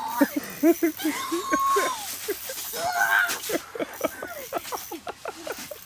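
Excited human voices: short cries and exclamations, with one drawn-out call about a second in and quick, choppy vocal bursts later, too garbled to make out as words.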